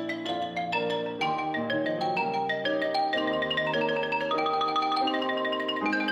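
Xylophone played in quick runs of short struck notes, with grand piano accompaniment underneath.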